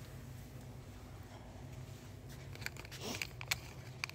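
Plastic packaging of scrubber-sponge packs crinkling and rustling as they are handled and pulled off a pegboard hook, in a few short crackles over a steady low hum.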